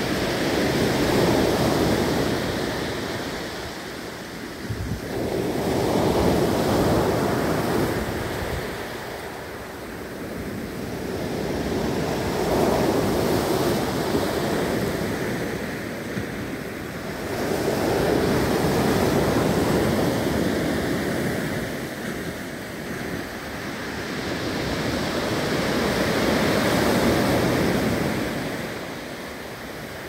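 Rough sea surf: waves breaking over a concrete breakwater and washing in on the shore. Each wave's rush swells and fades, about five surges spaced five to seven seconds apart.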